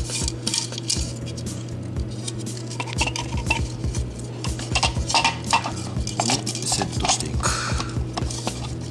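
Handling noise from a hard plastic model part turned in the hands: irregular light clicks, taps and rubbing as optical fibres are threaded through it and pulled.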